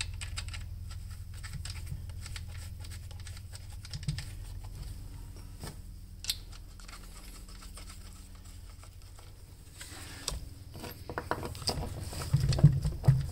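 Small metal handling sounds: chainsaw bar nuts being threaded onto their studs by hand, with a few light clicks. From about ten seconds in comes a busier run of scraping and clicking as a screwdriver works the chain tensioner, loudest near the end. A steady low hum lies under it all.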